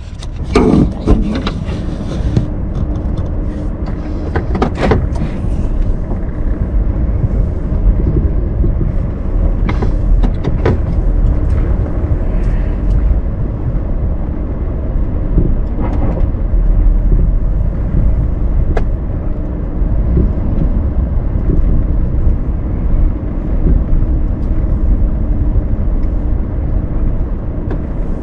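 Pickup truck running, heard from inside the cab: a steady low rumble of engine and road noise. A few knocks and rattles come in the first five seconds.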